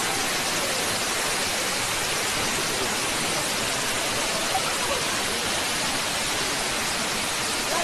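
Steady rush of a tall man-made indoor waterfall, water falling from a height onto rock and a wet floor.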